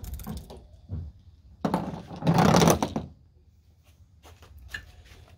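A few light clicks of a screwdriver turning out a tail-light screw, then a loud scraping rustle lasting about a second, followed by faint ticks.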